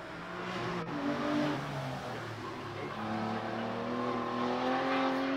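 Aston Martin V12 Vantage's V12 engine at full throttle as the car passes and pulls away. The pitch falls back about one and a half seconds in, then rises steadily over the last two seconds as it accelerates.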